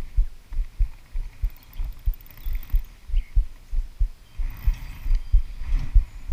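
Low, even thumping on the microphone about three times a second, with a short hissing swish about four and a half seconds in as the fly line is cast out.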